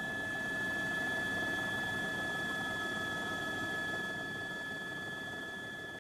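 Aircraft engine running steadily: a hum with a few held whining tones, easing slightly near the end.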